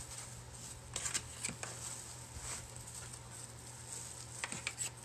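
Fabric and plastic-bag stuffing of a handmade pumpkin rustling and crinkling as it is squeezed and handled, in scattered short bursts. A steady low hum runs underneath.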